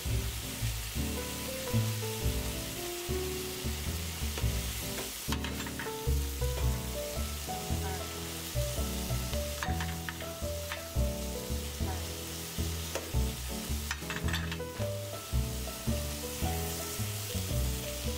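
Chicken pieces, cashews and vegetables sizzling in hot oil in a nonstick frying pan as they are stirred and tossed, with a few clicks of the utensil against the pan. Light background music runs underneath.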